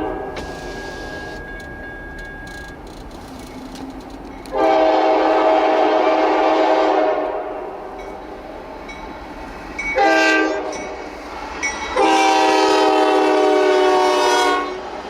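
Locomotive air horn sounding for a grade crossing. A long blast, then a short one, then another long one: the end of the long-long-short-long crossing signal.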